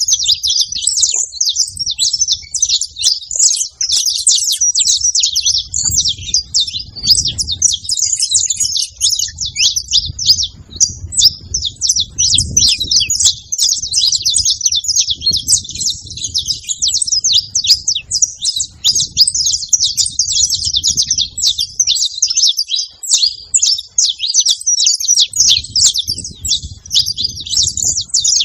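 A flock of saffron finches chirping and singing together: a dense, unbroken chorus of many rapid high chirps overlapping.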